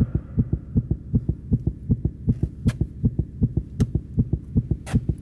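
Heartbeat sound effect, beating fast and steady in low, even pulses.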